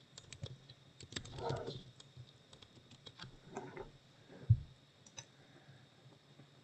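Computer keyboard typing and clicking in short runs of quiet key clicks, with one dull low thump about four and a half seconds in.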